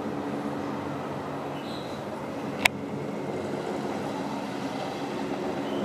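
Helicopter circling high overhead, a steady rotor and engine drone, with one sharp click about two and a half seconds in.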